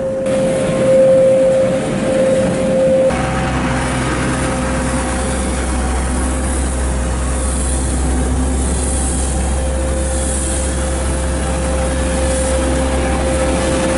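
Water tanker truck's engine running steadily to drive its pump, while a high-pressure hose jet sprays water onto cobblestone pavement. A deep steady drone comes in about three seconds in, with the hiss of the spray above it.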